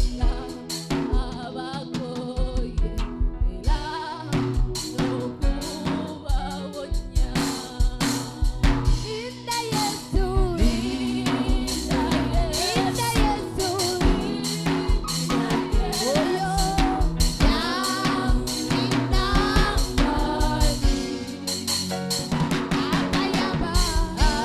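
Live gospel worship band playing with a full drum kit, snare and bass drum keeping a steady beat, and a sung melody over it.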